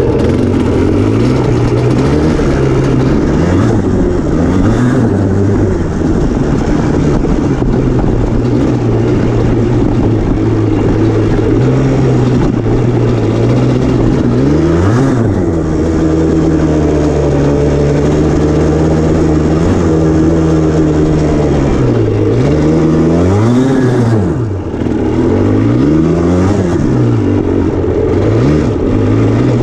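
Yamaha Blaster's two-stroke single-cylinder engine running under load on a dirt trail, its note rising and falling again and again with the throttle, with a sharp rev about halfway through and a quick run of revs near the end.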